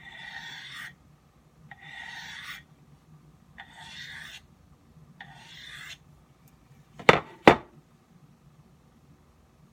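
A knife blade drawn across a hard ceramic sharpening stone in four slow scraping strokes, polishing an already-sharpened edge. About seven seconds in come two sharp knocks close together.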